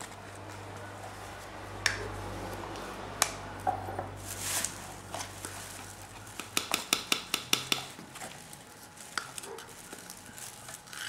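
Metal measuring spoon clinking and scraping against a small can and a measuring cup as baking soda and flour are measured out, with a short hiss about halfway through and a quick run of light taps about two-thirds in.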